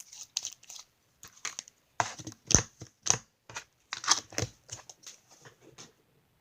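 Foamy slime being squished and stretched by hand, giving an irregular run of crackling, crunchy clicks that stops shortly before the end.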